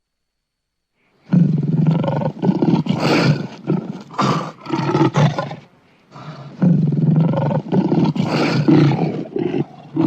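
Lion roaring in two long, rough bouts, starting about a second in, with a short break about six seconds in.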